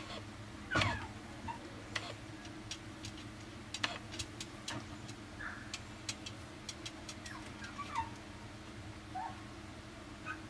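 Chihuahua puppy giving a few short, soft whimpers that fall in pitch, the loudest about a second in, with scattered light clicks and taps between them over a steady low hum.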